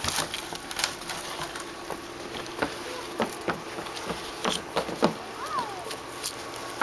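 Footsteps on a hollow corrugated plastic drainage pipe: irregular light knocks as a child walks along its top, over a faint steady hum.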